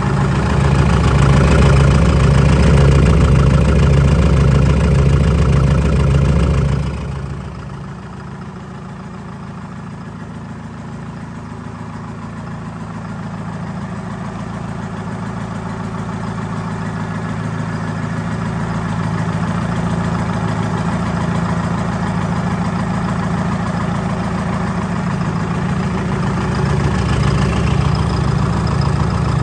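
Detroit Diesel 4-53 four-cylinder two-stroke diesel engine running on a test stand, with a steady pulsing beat. It is loudest for the first seven seconds, turns sharply quieter, then slowly builds up again.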